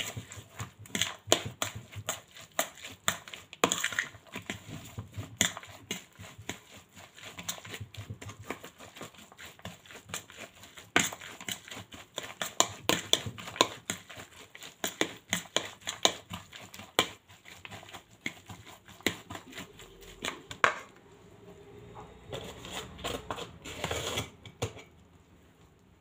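A metal fork clicking and scraping against the side of a bowl, several quick irregular taps a second, as an egg is mixed into wet grated zucchini and carrot. The tapping stops about three-quarters of the way through.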